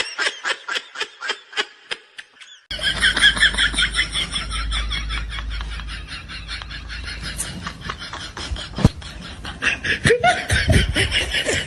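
Laughter in quick, rhythmic pulses, several a second. It breaks off briefly after about two seconds and starts again abruptly.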